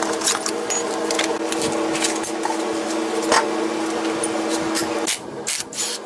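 A small motor whirring at a steady pitch, with scraping and clicking over it; it cuts off about five seconds in.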